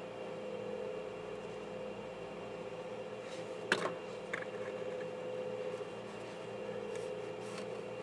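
Low steady background hum, like a fan or electrical hum. A single sharp click comes a little under four seconds in, with a smaller one just after and a few faint ticks near the end, as hands work the paracord.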